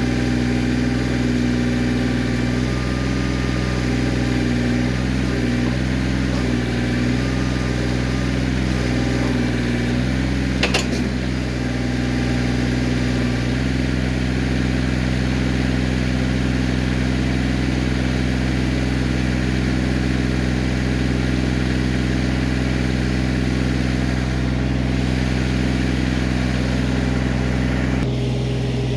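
Kioti CK20S compact tractor's three-cylinder diesel engine running steadily at working speed, its pitch wavering slightly in the first half. One sharp knock rings out about ten seconds in.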